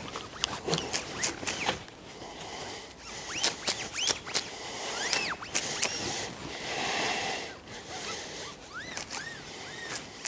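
Oily cloth rag rubbed up and down a shotgun's steel barrels while polishing: rustling wipes with many short squeaks that rise and fall in pitch, and a few light clicks.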